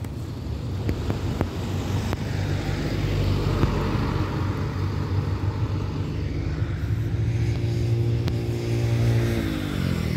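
Road traffic passing on a street, with a few light clicks. Near the end one vehicle's engine note holds steady, then drops in pitch as it goes by.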